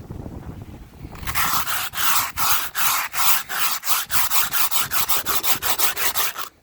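Rhythmic back-and-forth scraping strokes. They begin about a second in, quicken toward the end and stop suddenly.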